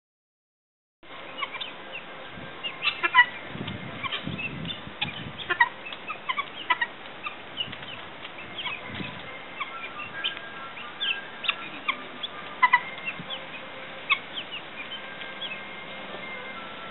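Guinea fowl flock calling: a continuous run of short, sharp, harsh chirps and clicks from several birds, starting about a second in. A few low rumbles come in about three to five seconds in.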